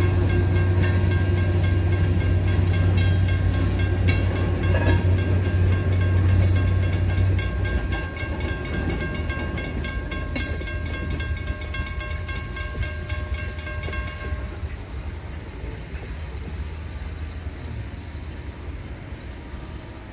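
Freight train cars rolling through a grade crossing while the crossing's warning bells ring rapidly and steadily over a low drone. The drone fades out about 7 seconds in. The bells cut off about 14 seconds in as the train clears, leaving a fading rumble.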